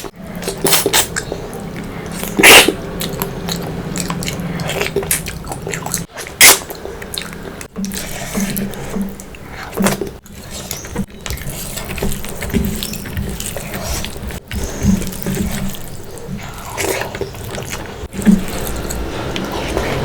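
Close-miked eating sounds: wet chewing and lip smacking while eating spicy fish curry with rice, with a few sharp louder mouth sounds, the loudest about two and a half and six and a half seconds in.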